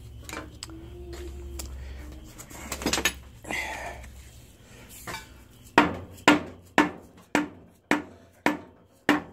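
Mallet strikes driving a G0602 lathe's spindle out of its tapered headstock bearings: about seven evenly spaced blows, roughly two a second, starting about six seconds in, each with a short metallic ring. Before them, light handling clatter and rustling.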